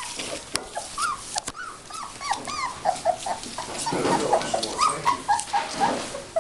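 Young puppies whimpering and yipping while they wrestle, a quick string of short high calls that rise and fall, with sharp clicks and the rustle of newspaper underfoot.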